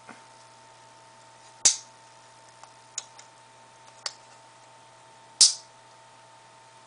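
Sharp plastic clicks and snaps from a phone's belt-clip holster being handled, four in all, the loudest about one and a half seconds in and again near the end. A faint steady hum runs underneath.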